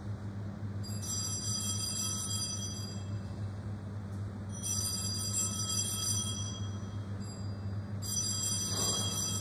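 Altar bells rung three times, each ring a cluster of high, bright tones that fades over about two and a half seconds, marking the elevation of the host at the consecration of the Mass. A steady low hum lies underneath.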